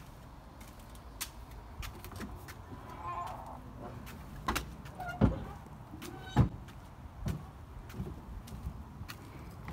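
Footsteps on a concrete path and a white wooden garden gate being unlatched and opened, with scattered clicks and a brief creak, then two loud knocks about a second apart.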